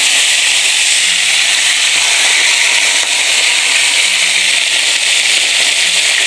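Whole fish frying in a pan of hot oil: a steady sizzle and crackle.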